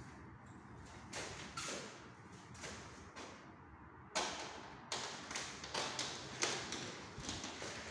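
A large tile slab being bedded into wall adhesive: a few soft knocks and shuffles, then from about four seconds in a run of about ten sharp knocks as it is tapped and pressed into place.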